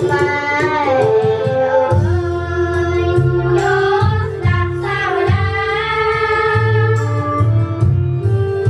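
Several young girls singing a Khmer song together over an instrumental backing with a steady bass line.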